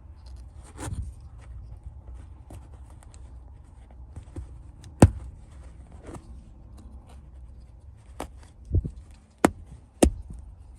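A sharp knife blade cutting a small hole in a car seat's fabric upholstery: faint scraping and handling noise with scattered sharp clicks, the loudest about five seconds in and a few more near the end.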